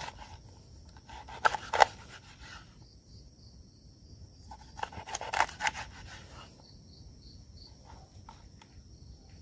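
Kitchen knife cutting through a whole scaled fish into round slices on a wooden cutting board: two bunches of sharp cutting and knocking strokes, the loudest about one and a half seconds in, the other about five seconds in. Crickets chirp steadily and faintly in the background.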